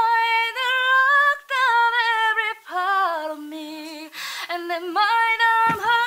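Unaccompanied singing: one voice holds long, high sung notes that step up and down with a slight waver, dipping lower around the middle, with a quick breath about four seconds in.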